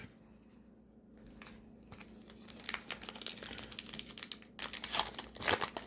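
Wrapper of a trading card pack crinkling and tearing as it is ripped open. The sound starts about a second in and grows louder toward the end.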